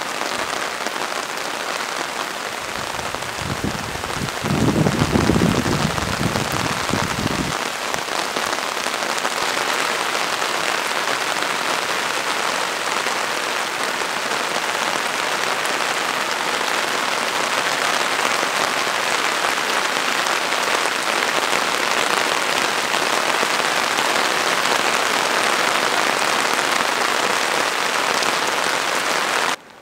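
Heavy downpour: rain hissing steadily and evenly. From about three and a half to seven and a half seconds in, a deeper rumble swells and fades under the rain, and the sound breaks off abruptly just before the end.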